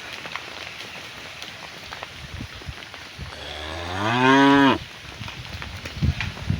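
A cow mooing once: a single loud call about a second and a half long that rises in pitch and then drops off sharply as it ends. A few low knocks follow near the end.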